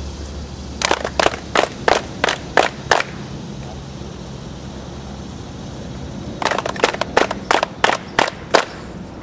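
A small group clapping hands together in unison: two rounds of about seven claps each, a few seconds apart, about three claps a second. These are the seven claps of a hand-activation ritual.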